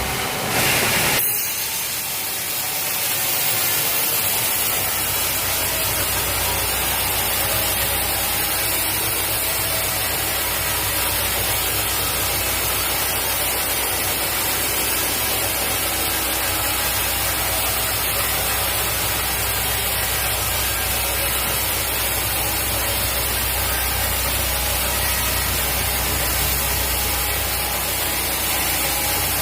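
A sawmill saw running and cutting through a teak log: a steady rushing noise over a low machine hum. The sound changes abruptly about a second in.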